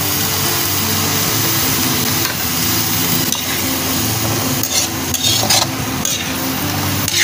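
Cubed squid, papaya and onion sizzling in a hot metal wok while a metal ladle stirs them, scraping and clinking against the pan a few times.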